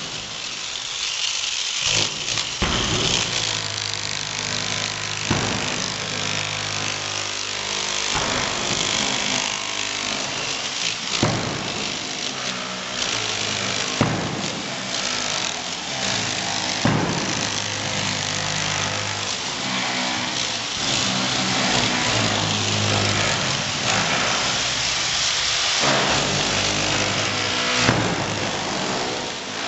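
Electric demolition hammers chiselling into concrete with a continuous hammering rattle, while a sledgehammer strikes the concrete about every three seconds.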